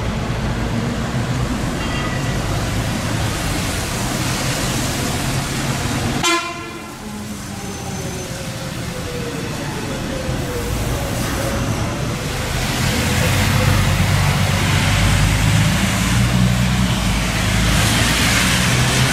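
City buses moving through a bus station on wet pavement: steady engine and tyre noise, with a short horn toot about six seconds in. In the last several seconds a bus engine runs louder as a bus pulls past close by, over a rising tyre hiss.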